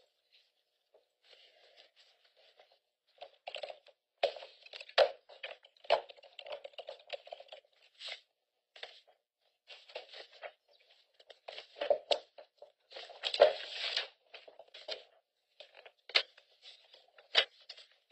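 Sheets of paper rustling and being handled in irregular bursts, with a few sharp knocks; the loudest stretch comes about thirteen seconds in.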